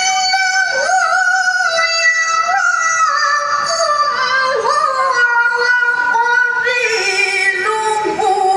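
A female reciter chanting the Quran in the melodic tilawah style. She sings long held notes with wavering ornaments, and the phrase steps gradually lower in pitch.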